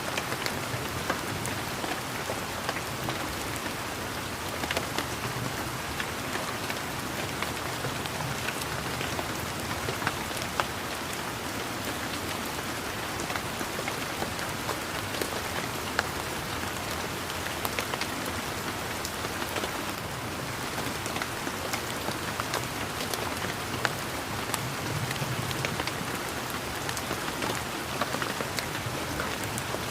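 Steady rain falling, with frequent sharp taps of individual raindrops landing close by.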